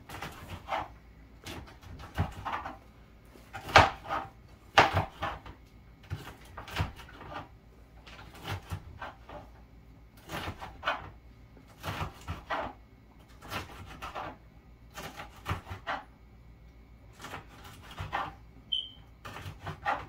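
Kitchen knife chopping bora (yard-long beans) on a wooden cutting board: irregular knocks, often in quick pairs, about one or two a second, with short pauses between runs.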